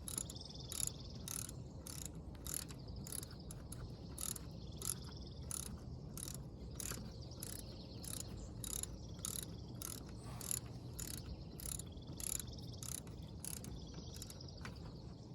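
Socket ratchet wrench clicking in a steady rhythm, about three clicks a second, as the brake caliper bolts are run in and tightened.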